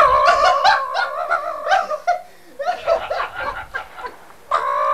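A man's loud, high-pitched wordless vocalizing with laughter. Long wavering notes stop about two seconds in and pick up again near the end.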